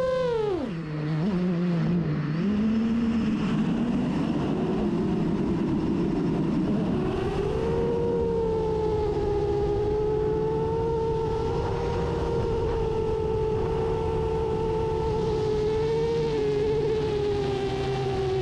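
FPV drone's electric motors whining. The pitch drops sharply about half a second in, runs rough and uneven for a few seconds, then climbs back and holds a steady high whine from about seven seconds on.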